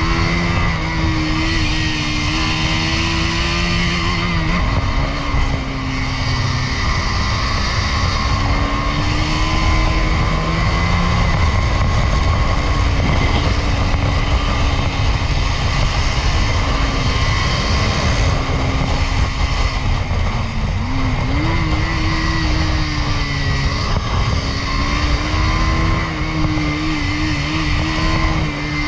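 KTM Duke 250's single-cylinder engine running at steady revs under way, with heavy wind rush on the microphone. About 20 seconds in the engine note dips and climbs back up.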